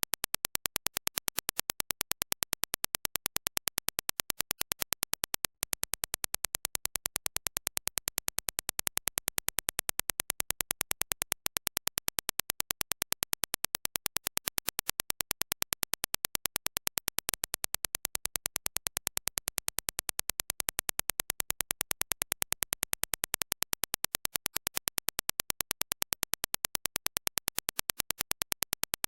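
A steady, rapid train of evenly spaced sharp clicks of equal loudness, an electronic test signal, with two brief breaks early on.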